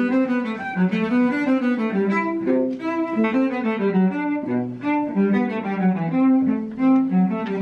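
Solo cello playing a melody of quick, separate notes that step up and down.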